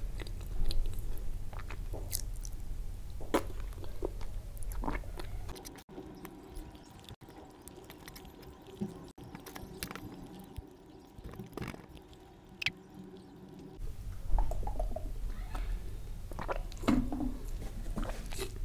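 Close-miked chewing and wet mouth sounds of soft rice biryani and kofta, with short clicks and scrapes of a metal spoon against a ceramic plate.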